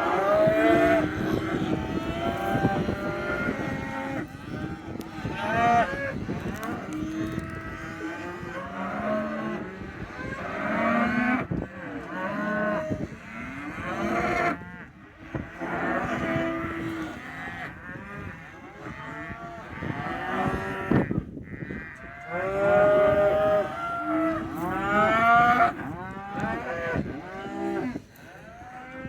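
A herd of cattle mooing and bellowing, many animals calling over one another almost without pause. A few sharp knocks are heard among the calls.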